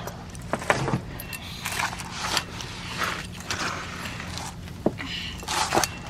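Hands sifting through loose garden soil for small potatoes: irregular rustles and scrapes with scattered light knocks and clicks.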